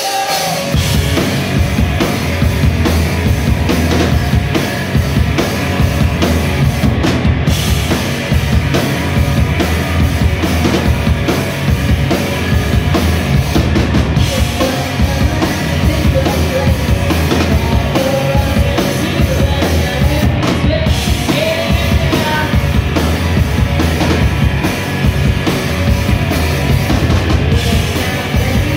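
Live rock band playing loud: a drum kit with bass drum under electric guitars.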